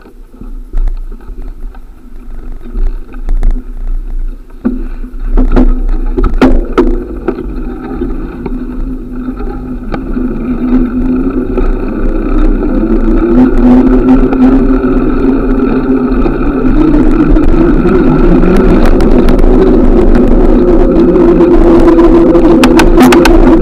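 Wind and road noise from a moving bicycle, rushing over the microphone and growing steadily louder as the ride picks up speed, with a few sharp knocks about five to seven seconds in.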